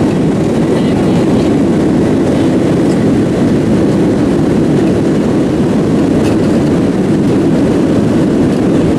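Boeing 737 jet engines and rushing air, a steady loud low noise that does not change.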